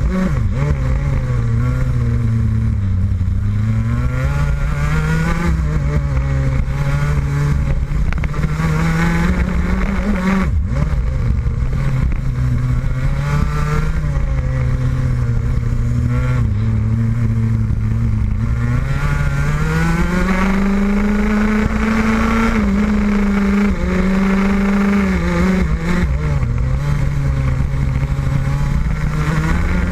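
Rotax Max 125cc single-cylinder two-stroke kart engine at racing pace, its pitch climbing as it accelerates and dropping sharply each time the throttle is lifted for a corner, several times over.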